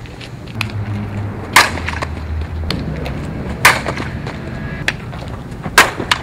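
Softball bat striking softballs: three sharp cracks about two seconds apart, on slap-hitting swings.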